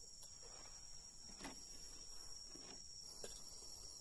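Steady high insect chirring in the background, with a few faint knocks and rustles.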